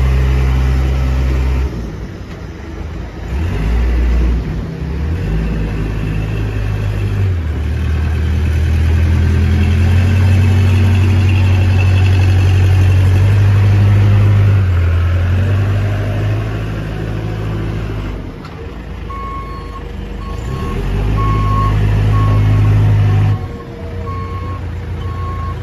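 Case 580M Series 2 loader backhoe's 80 hp Case diesel running, its revs rising and falling. In the last several seconds its reverse alarm beeps steadily over the engine.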